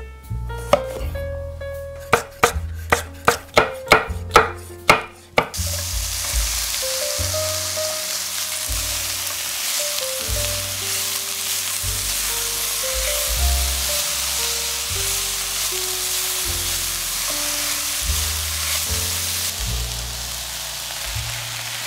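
About ten quick knife strokes on a wooden cutting board as bell peppers are sliced. A few seconds in, this gives way to a steady sizzle of sliced peppers and red onion frying in olive oil in a stainless sauté pan, stirred now and then. Background music plays throughout.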